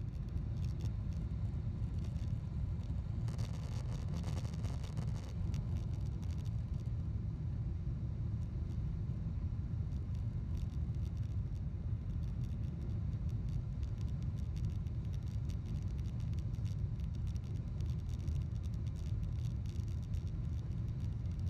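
Steady low rumble of a Boeing 777-200ER's engines and rushing air, heard inside the passenger cabin during the climb after takeoff. A brief hiss rises over it about three to five seconds in.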